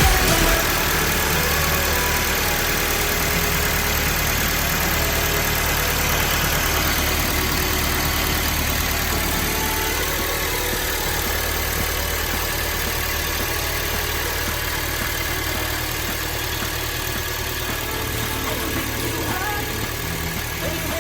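Toyota Hiace van's four-cylinder petrol engine idling steadily.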